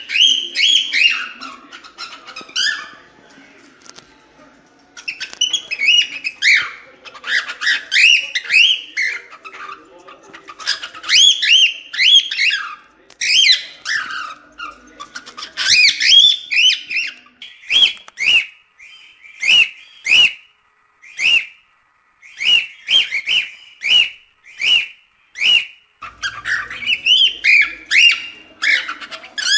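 Cockatiel singing: fast runs of chirps and warbled whistles with a short pause about three seconds in. In the second half comes a run of sharp clicks, each followed by a short whistled note, about two a second, before the warbling chirps return near the end.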